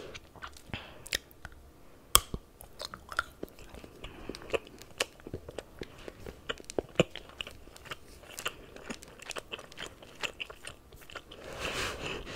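Chocolate being chewed close to a sensitive microphone: irregular crisp crunches and small clicks of the mouth, with one sharper, louder snap about two seconds in.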